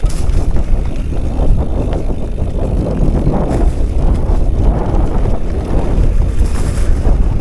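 Heavy wind rumble on the camera microphone while a mountain bike rides fast down a dirt trail, with the tyres rolling over dry leaves.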